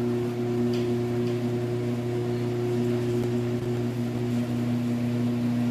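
A steady low hum, a drone of several fixed tones that holds unchanged, with a couple of faint ticks about a second in.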